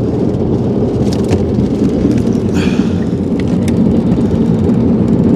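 Jet boat running under way: a loud, steady low rumble of the engine and jet drive with a rushing noise over it, and a few faint clicks.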